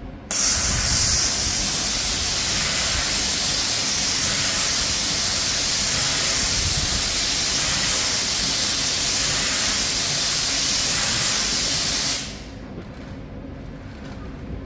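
Loud, steady hiss of compressed air venting from a Class 390 Pendolino electric train standing at the platform. It starts suddenly, holds level for about twelve seconds, then cuts off.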